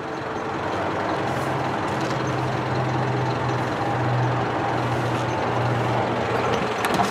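Mitsubishi Fuso dump truck's turbo diesel engine idling, heard from inside the cab: an even rush with a steady low hum that comes in about a second in. A few clicks near the end.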